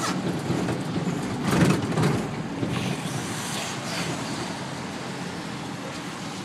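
Cab noise of a 1991 UD 1200 truck under way on a wet road: the four-cylinder engine running and the tyres on the road, with a couple of louder jolts about a second and a half in, then steady running.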